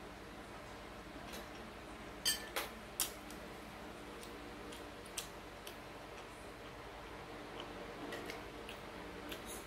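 A metal spoon clicks against a ceramic plate three times in quick succession about two to three seconds in, and once more near five seconds, between soft ticks of eating.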